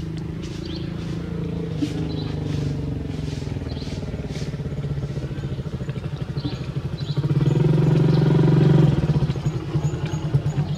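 An engine running steadily, growing louder about seven seconds in, then settling into a throbbing beat.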